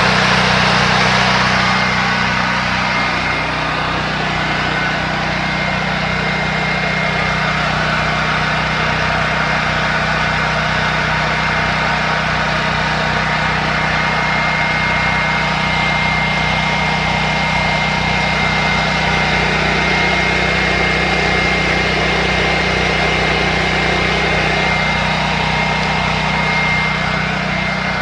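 Predator 8750 portable generator's 420cc single-cylinder engine running at a steady speed: an even engine hum with a thin steady whine above it.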